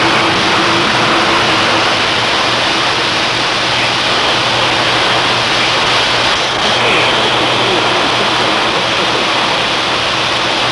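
Live steam escaping from a leaking high-pressure steam pipe under the street, a loud, steady hiss with a faint low hum beneath it.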